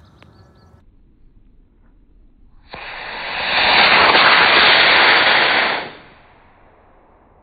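Model rocket motor igniting with a sudden start about three seconds in, then a loud rushing hiss for about three seconds as the rocket lifts off, dropping away and fading as it climbs.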